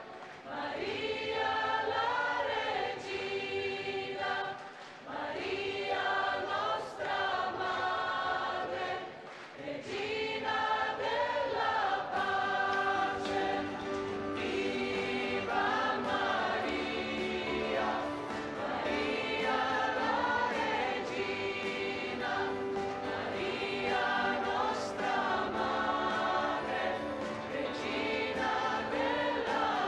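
Choir singing a hymn in phrases of held, rising and falling notes.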